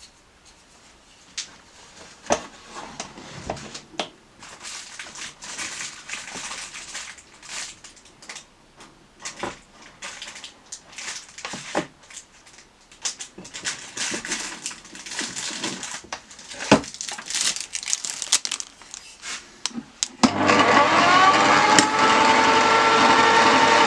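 Irregular scraping, rubbing and sharp knocks of tools and wood being handled, then about 20 seconds in a woodturning lathe's motor switches on, its hum rising briefly in pitch as it spins up and then running steadily and loudly.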